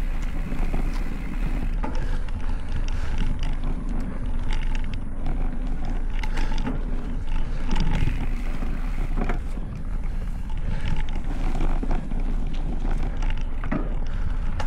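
Specialized Stumpjumper Evo mountain bike ridden along a dirt trail, heard from a handlebar-mounted camera: steady wind rush on the microphone and tyre noise, with frequent sharp knocks and rattles from the bumps.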